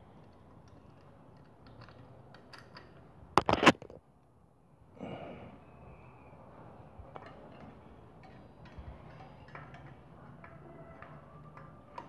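Small metallic clicks and clinks of tools and brake parts being handled at a bicycle-type disc brake caliper, with a short loud clatter of several sharp knocks about three and a half seconds in and another rattle a little later.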